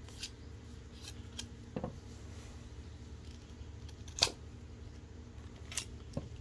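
A bamboo sliver is shaved against a curved steel dao blade, with a few sharp, irregular scraping clicks; the loudest comes about four seconds in. This is the work of carving the spout (nali) used to tap date palm sap. A steady low hum runs underneath.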